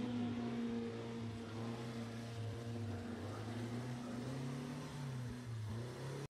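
Racing car engine running at speed, its pitch wavering up and down.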